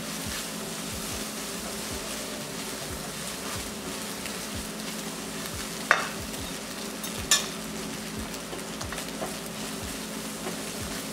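Scrambled eggs sizzling in butter in a non-stick wok while a slotted spatula stirs and scrapes through them, over a low steady hum. Two sharp clicks stand out, about six and seven seconds in.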